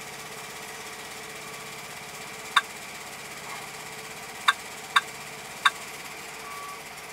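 Four short electronic key-press beeps from a truck GPS touchscreen as digits of a longitude are entered, the last three coming quickly. Underneath, the truck's engine idles with a steady hum.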